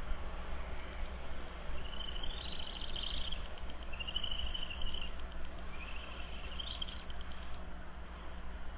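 Three high-pitched trilling calls, each about a second long, from a small animal, over steady low background noise.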